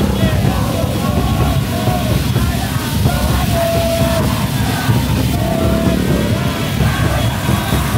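A crowd of football supporters chanting and singing together in short held notes, over a loud, dense low rumble.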